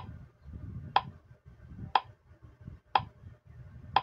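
Countdown timer sound effect ticking once a second, short sharp ticks evenly spaced.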